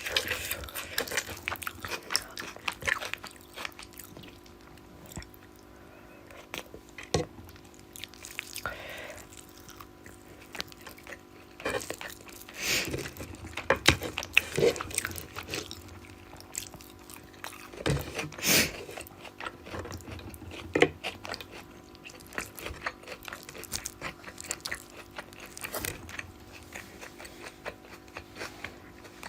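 Close-miked chewing and mouth sounds of a person eating rohu fish curry with rice, with wet clicks and smacks scattered throughout and a few louder bursts. A faint steady hum runs underneath.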